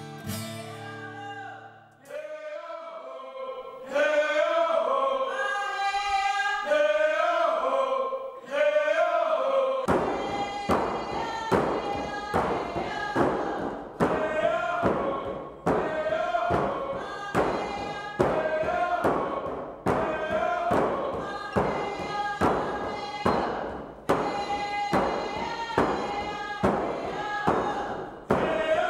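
Acoustic guitar music ends in the first two seconds. A group of voices then sings a dance song, and about ten seconds in a steady hand-drum beat joins it.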